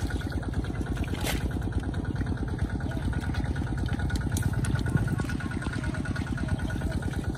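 A small engine running steadily with a fast, even beat: the motor driving the pump that drains the fish pond.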